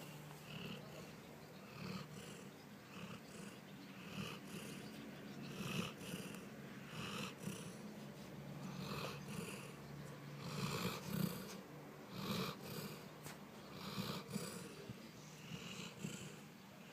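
A sleeping pet snoring: a steady low rumble with a breathy snore roughly every second.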